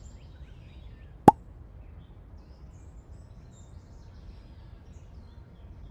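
A single short pop about a second in, over a faint steady hiss with faint bird chirps.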